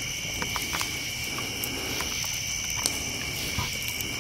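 A steady chorus of night insects such as crickets trilling at several high pitches, with scattered sharp crackles and pops from a burning wood campfire.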